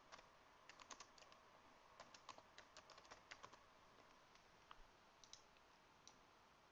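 Faint computer keyboard typing: a quick run of keystrokes over the first three and a half seconds, then a few scattered clicks.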